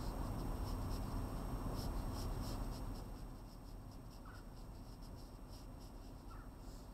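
A pencil sketching on paper in short, scratchy strokes, busier and louder for the first three seconds or so, then lighter.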